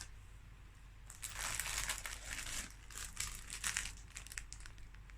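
Packaging being handled and crinkled while an item is unwrapped from a subscription box, a dense run of crackling that starts about a second in and dies down near the end.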